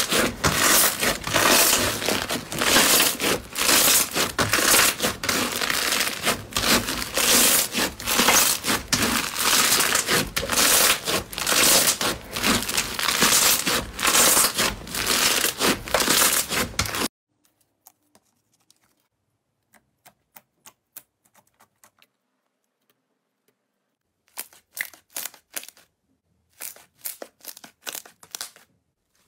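Pink foam-bead slime (floam) squeezed and kneaded by hand, giving a dense, continuous crunching crackle as the beads pop and rub. It cuts off suddenly about 17 s in. After a few seconds of near silence, a yellow slime being handled gives scattered short crackles in small groups.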